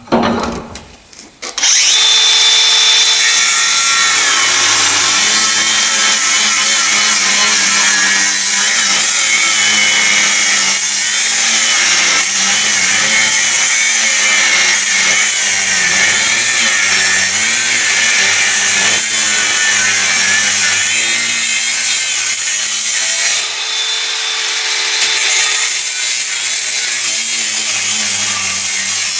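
Angle grinder with a cutting disc slicing through steel, its whine rising and falling as the disc bites. It starts about two seconds in, eases off for a moment near the end and then cuts again.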